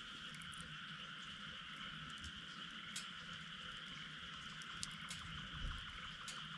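Steady chorus of frogs calling, with a few short, sharp clicks scattered through it.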